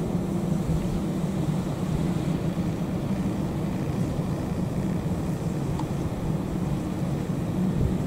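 Car engine idling, a steady low hum with a low rumble under it, heard from the car.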